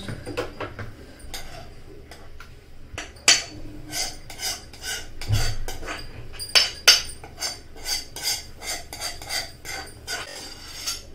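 A metal spoon scraping and knocking against a kadhai as curry is scooped out of it, giving irregular clinks and scrapes that come closer together in the second half.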